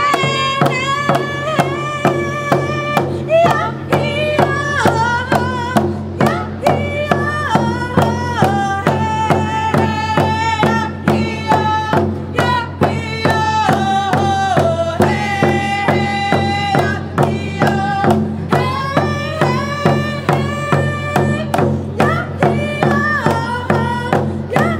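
Women singing a song together in high, held notes while beating handheld frame drums with beaters in a steady beat of about two strokes a second.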